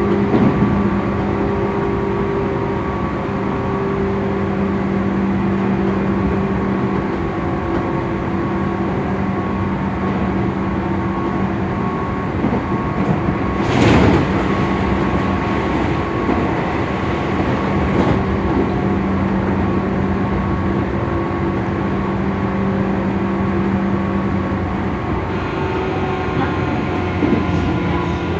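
Tobu 9000 series chopper-controlled electric train car 9204, heard on board, running with a steady hum of several held tones. This is the car's odd, abnormal running sound. About halfway through there is a brief loud rush of noise. Near the end a higher set of tones joins in and the tones begin to slide down.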